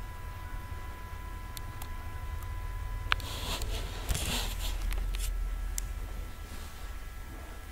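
Steady low electrical hum with a faint steady tone, a sharp click about three seconds in, then about two seconds of rustling.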